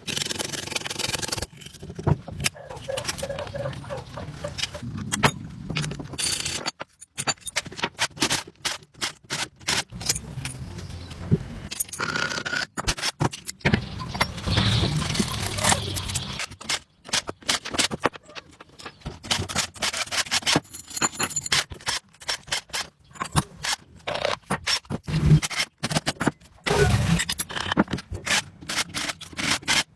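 Irregular scraping and rubbing strokes with rattling, like hand work on a hard object, broken by a few short pauses.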